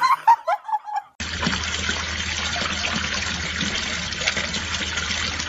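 A few short cries, like a cat's, in the first second, then after a break a steady, even hiss of running, trickling water.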